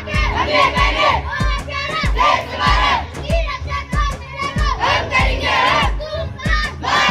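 A crowd of children's voices shouting together over a steady low beat of about two thumps a second.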